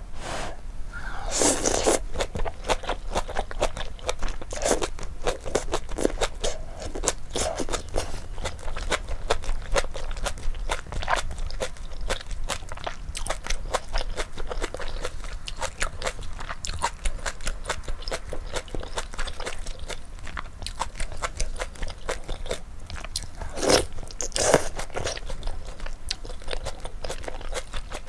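Close-miked eating of malatang: steady chewing and crunching with many small wet mouth clicks. There are louder bites about a second and a half in and again near the end.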